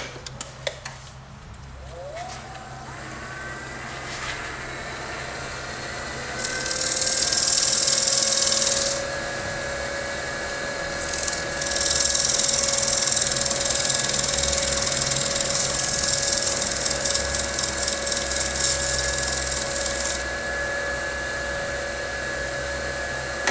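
Wood lathe motor spins up about two seconds in and settles to a steady whine. Sandpaper hisses against the spinning wooden bowl in two stretches, one of a few seconds and one of about eight seconds, sanding out a gummed-up spot in the shellac finish.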